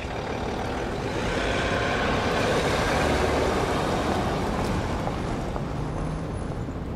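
Range Rover SUV driving off and past: engine and tyre noise that swells to a peak about three seconds in, then fades.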